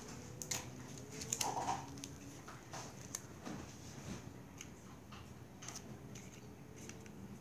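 Light scattered taps, clicks and rustles of hands handling clear sticky tape and a cardboard box, with one brief louder sound about a second and a half in.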